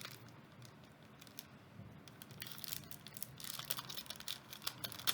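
Plastic packaging crinkling and tearing as it is cut open by hand, in quick crackly bursts that grow busier after about two seconds.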